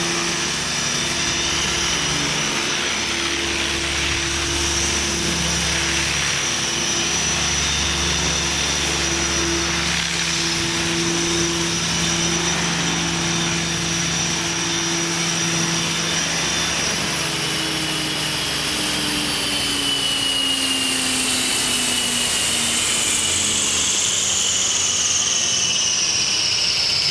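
Align T-REX 500 electric RC helicopter's rotor and motor running with a steady whine, then, from about two-thirds of the way in, the whine falls steadily in pitch as the motor is cut and the rotor spins down.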